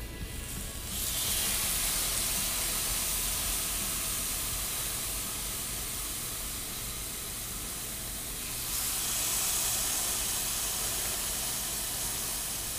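Marinated chicken breasts sizzling on the hot grate of a Hamilton Beach electric indoor searing grill, a steady hiss. It starts about a second in as the first breast goes down and swells again near nine seconds in as the second is added.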